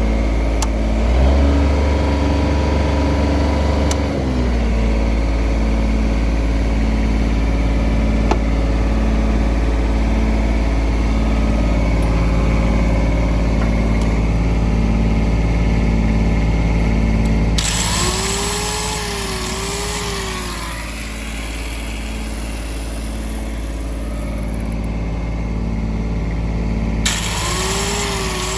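Denyo DAT-270ES2 diesel engine welder-generator running. Its engine speed shifts up and down in the first few seconds, then holds steady. Past the middle the sound turns hissier, with a wavering whine over the engine.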